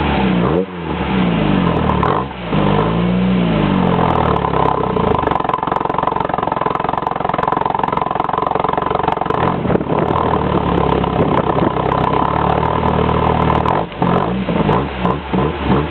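1983 VW Mk1 GL engine revved through a Simons exhaust, with the engine cold. It gives a couple of quick revs at first, then is held at high revs for about ten seconds, then blipped several times near the end.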